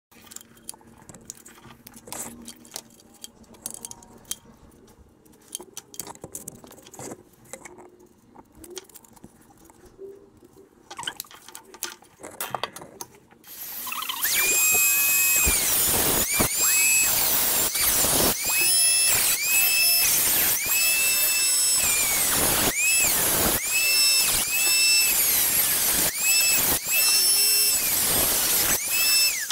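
A few light clicks of metal parts being handled, then, about halfway through, a rotary tool with an abrasive cut-off wheel starts up and cuts into a metal headlight bucket. It makes a loud, high-pitched whine that sags in pitch each time the wheel bites into the metal and climbs back as it lifts off, over and over, with a few brief stops.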